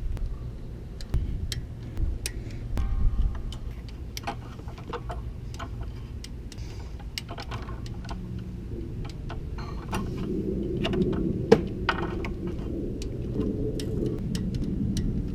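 Torque wrench ratcheting in short irregular clicks as the water pump bolts on a Chrysler 3.5L V6 are tightened to 105 inch-pounds, with one sharper click near the middle.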